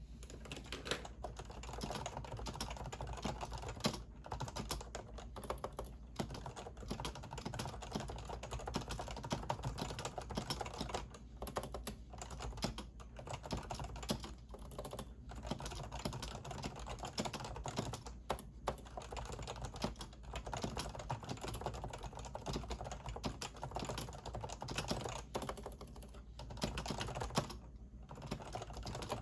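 Continuous fast typing on a Topre Realforce keyboard with its electrostatic capacitive Topre switches: a dense stream of keystrokes broken by a few brief pauses.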